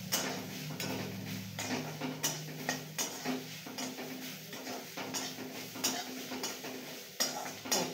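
Metal spatula scraping and knocking against a metal kadai as spiced cabbage filling is stirred and tossed, in irregular strokes several times a second.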